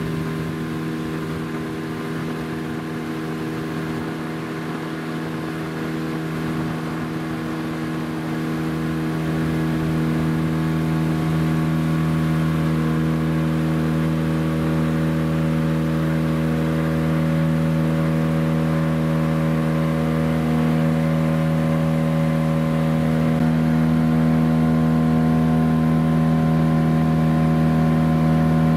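Boat's outboard motor running steadily at slow trolling speed, an even drone that holds one pitch and grows a little louder about nine seconds in.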